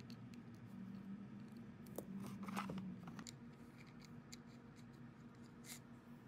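Faint clicks and scraping of hands and a screwdriver working the metal housing and chuck of a vintage Craftsman electric drill during reassembly, with a louder stretch of handling noise about two to three seconds in. A steady low hum runs underneath.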